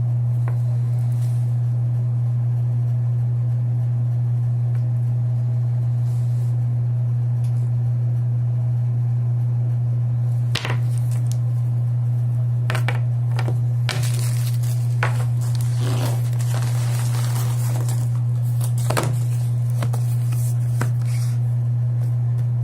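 A steady low electrical hum throughout. From about halfway in, plastic packaging crinkles and rustles, with sharp clicks and a few short rustling bursts as a product is unwrapped.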